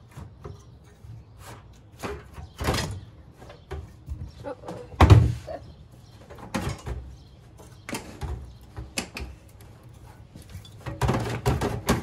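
Removable power supply module being pulled out of a tower server's metal bay: a series of metal clunks and scrapes, with the loudest knock about five seconds in and a denser rattle near the end.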